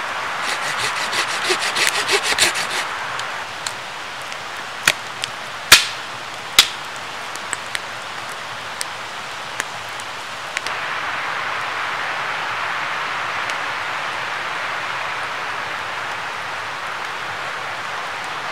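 Steady rush of a river and waterfall, with a wood campfire crackling and giving a few sharp pops, the loudest about six seconds in. A quick rhythmic scraping runs through the first couple of seconds.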